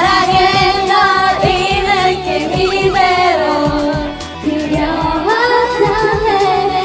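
A young woman singing a pop song with vibrato over a karaoke machine's backing track.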